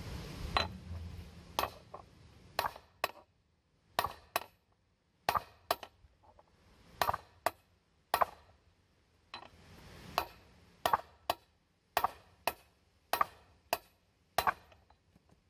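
A hammer striking a large 2 3/16-inch socket set on a truck driveshaft yoke, about twenty sharp metal blows in uneven groups with a brief pause partway through. Each blow drives the yoke over the socket and forces the U-joint bearing cup out of the yoke.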